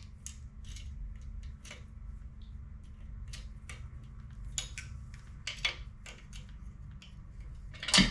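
Irregular light metallic clicks and taps of small parts being handled while a thin retaining pin is fitted on a log splitter, with one sharper knock near the end.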